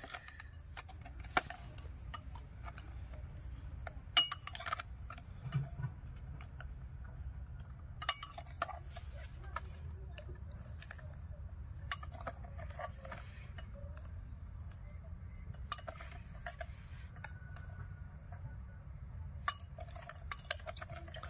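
Metal spoon clinking against a glass beaker and scraping as powdered sugar rocket fuel is scooped into a PVC pipe. The sharp clinks come every few seconds over a low steady rumble.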